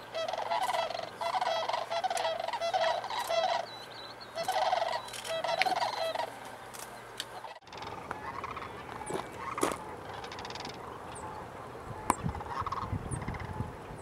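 Sandhill cranes giving their rolling, rattling bugle calls, several birds overlapping in repeated bouts. About halfway through the sound breaks off, and after that the calls come fainter and more scattered over a low rumble.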